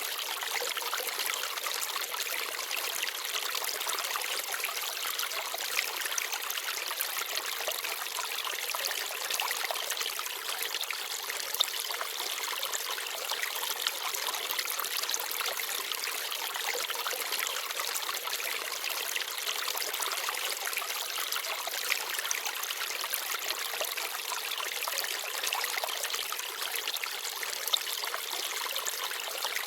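Forest stream babbling and trickling steadily, with now and then a brief sharper splash.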